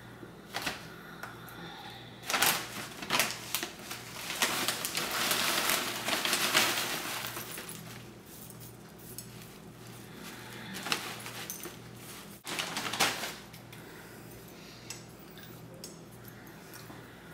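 Plastic bag of horticultural charcoal being handled: the bag crinkling with small hard pieces rattling inside, loudest for a few seconds starting about four seconds in, with scattered clicks and knocks before and after.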